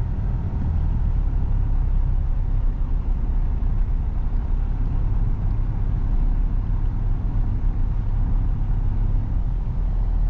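Toyota 80 Series LandCruiser engine running steadily at low revs, heard from inside the cabin as the 4x4 wades slowly into floodwater.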